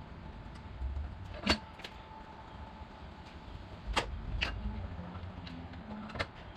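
Four separate sharp clicks and knocks, the loudest about one and a half seconds in, from hand work on the spare tire and its carrier as the tire is being taken off.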